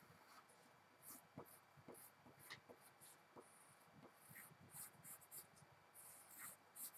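Pencil scratching faintly on paper in many short strokes as an outline is drawn over.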